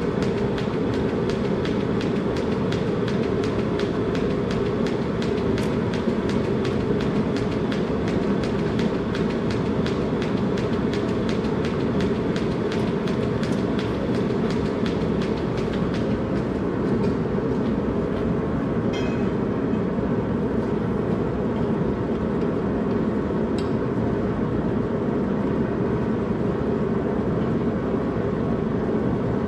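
Propane gas forge burner running steadily, an even rushing noise. A fast, even ticking runs over it for about the first half and then stops.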